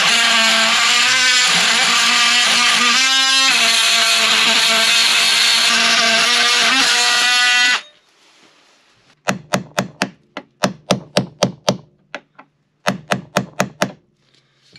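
Cordless oscillating multi-tool cutting through a copper boat nail, a loud steady buzz with a whine that shifts slightly in pitch, which stops about eight seconds in. After a short pause come two runs of quick hammer blows, about four a second, driving the cut copper nail out.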